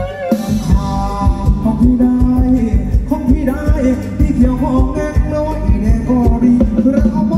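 Live Thai ramwong band music: singing over a steady drum beat.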